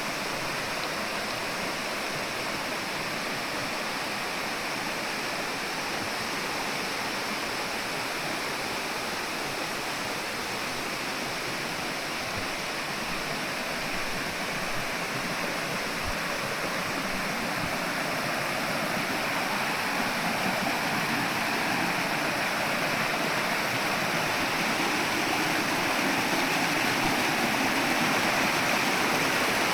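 Steady rush of flowing water, growing gradually louder toward the end.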